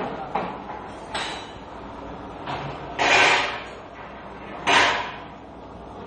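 A series of separate clattering knocks or scrapes, five or so, each dying away within about half a second. The two loudest come about three seconds in and near five seconds, over a low steady hum.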